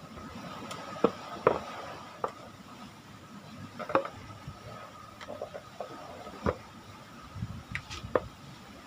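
Irregular clicks and knocks of exhaust fan parts being handled during disassembly, a few separate taps spread out at uneven intervals.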